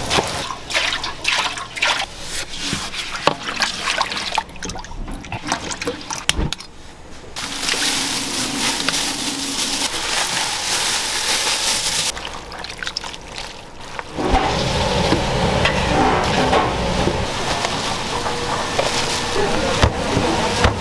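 Kitchen food-prep sounds: a flat metal frying pan and utensils clatter and knock as an egg sheet is cooked and flipped over a gas burner. After that come long stretches of steady hissing, rushing noise.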